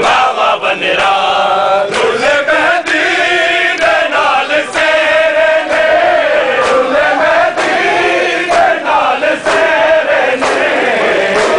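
A large crowd of men chanting a Muharram noha together, many voices in unison, with sharp slaps of chest-beating (matam) cutting through at uneven intervals.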